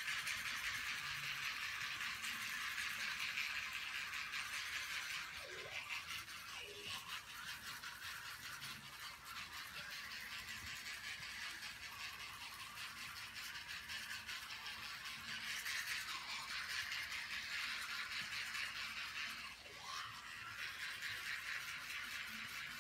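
A toothbrush scrubbing against teeth, a steady fast hissing scrub that runs on with brief pauses.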